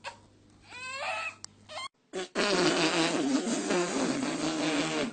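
A fart sound: a long, loud, buzzy rattle lasting about three seconds, starting about two seconds in. It follows a short squeaky, wavering sound near the start.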